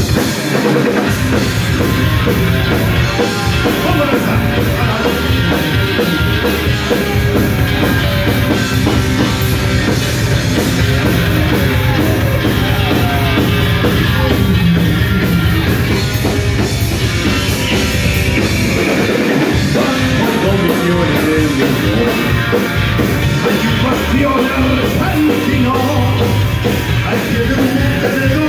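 Live rock band playing a song, with a drum kit driving a steady beat.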